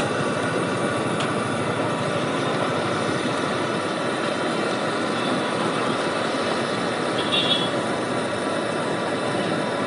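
Fuluri fritters sizzling steadily in a kadai of hot oil over a gas burner, with a brief high-pitched chirp about seven seconds in.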